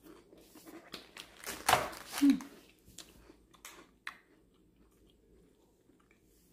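A person chewing crisp Krackjack crackers with the mouth closed: soft irregular crunches, with a louder noise about two seconds in, then quieter chewing toward the end.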